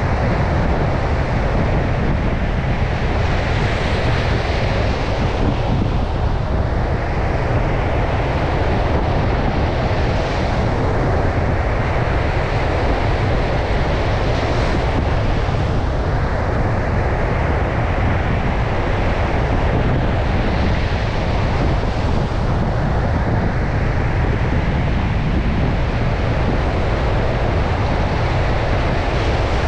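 Storm surf breaking on a beach, the hiss of the waves swelling and easing every few seconds, under strong wind that rumbles on the microphone.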